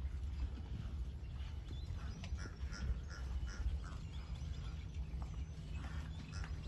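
Birds calling in many short, repeated chirps over a steady low rumble.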